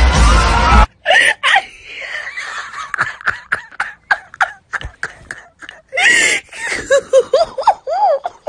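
A person laughing hard: a run of short bursts of laughter, then higher laughs that slide up and down near the end. It opens with a loud burst of music and noise that cuts off about a second in.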